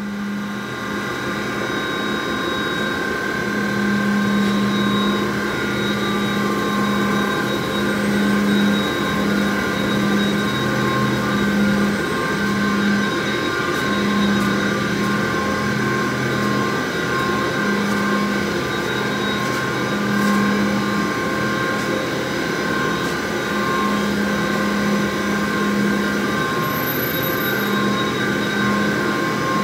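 Steady whine and hum of running HDPE pipe-production machinery, with several constant high tones over a low drone that swells and drops off irregularly.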